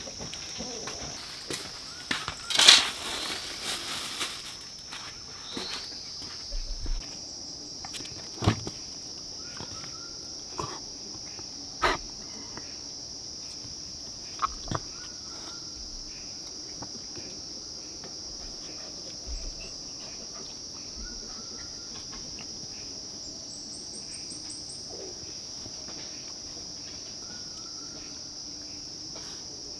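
Steady high chirring of insects through the whole stretch, with a few sharp knocks, the loudest about three seconds in and a few more within the first fifteen seconds.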